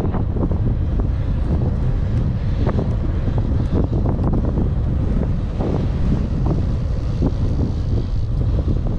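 Wind buffeting the microphone of a helmet-mounted camera while cycling, a loud, steady low rumble. Frequent short small knocks are scattered through it.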